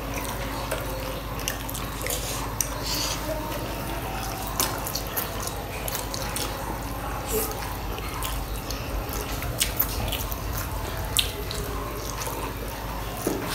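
Close-miked eating sounds of Maggi instant noodles and momos being chewed: irregular wet mouth smacks and clicks over a steady low hum.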